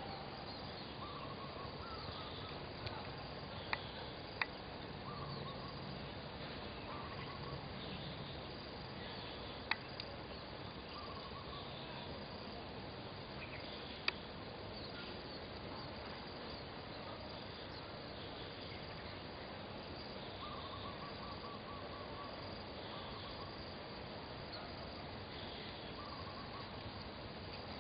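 Outdoor field ambience: a steady hiss with faint, short chirps scattered through it, and a few sharp clicks in the first half.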